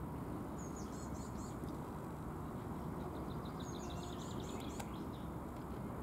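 Small songbirds chirping in two short bouts, about a second in and again from about three to five seconds, over a steady low rumble of outdoor background noise.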